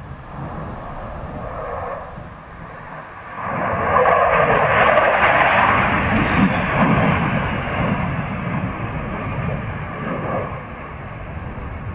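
An aircraft flying past, most likely a jet: the engine noise swells sharply about three and a half seconds in, is loudest for a couple of seconds, then slowly fades as it goes away.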